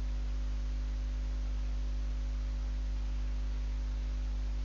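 Steady electrical mains hum with a low buzz and a faint even hiss, unchanging throughout.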